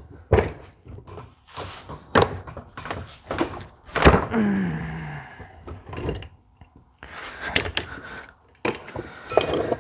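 Metal parts and hand tools knocking and clicking while a Ford tractor diesel injection pump is taken apart: a string of irregular knocks, clunks and clicks, the loudest about four seconds in.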